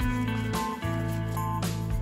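Background music: strummed guitar chords over a bass line, with the chord changing about half a second in and again near the end.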